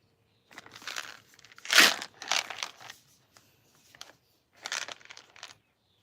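Packaging being handled and torn open: several bursts of crinkling and tearing, the loudest a little under two seconds in.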